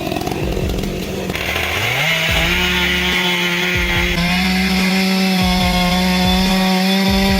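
Chainsaw revving up about two seconds in, then running steadily at full throttle while cutting wood.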